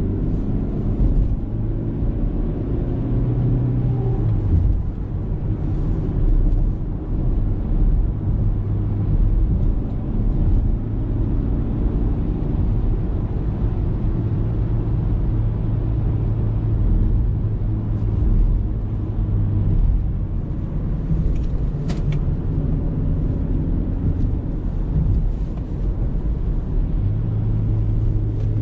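Car engine running steadily with a low hum whose pitch shifts a little now and then, including a brief rise about four seconds in.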